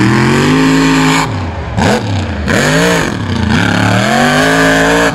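Lifted mud-bog truck's engine revving hard as it drives through the mud. The pitch climbs and drops about four times as the throttle is worked, loudest at the end.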